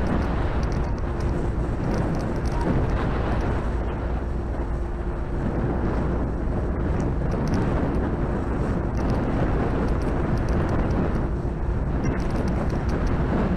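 Wind buffeting the microphone in a steady, heavy rumble, with a faint steady hum underneath.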